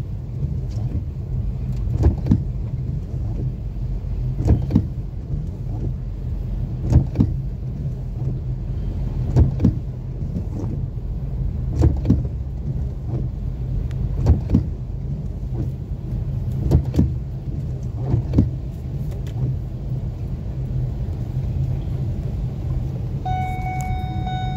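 Inside a moving car on a wet, flooded street: a steady low rumble of engine and tyres on water, with the windshield wipers knocking at each sweep about every two and a half seconds. A steady pitched tone comes in near the end.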